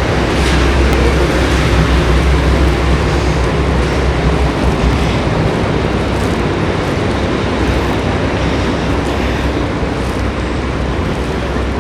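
Steady low engine drone of a tour boat under a loud rushing noise of wind and water. The drone eases a little about four seconds in.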